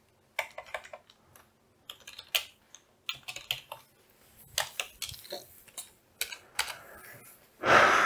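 Computer keyboard typing: irregular runs of key clicks with short pauses between them. Near the end comes a short, louder rush of noise.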